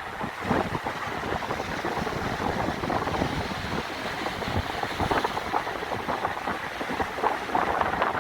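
Sea waves washing against the shore, with wind buffeting the microphone in an irregular, gusty rumble.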